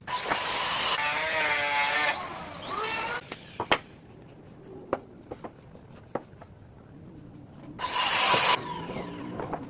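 Woodworking sounds: a power tool runs in two short bursts, about two seconds long at the start and briefly near the end, with scattered knocks and taps on wood between them.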